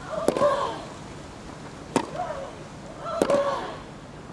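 Tennis rally: a racket strikes the ball three times, about a second and a half apart, and each shot comes with a player's short grunt.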